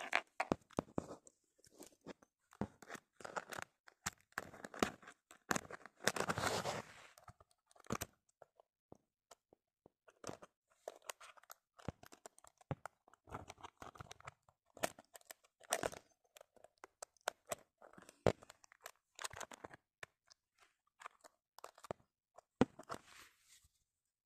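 Irregular clicks, scrapes and rustles of fingers working the small metal lock and clasp on a lockable diary, with a longer stretch of rustling about six seconds in.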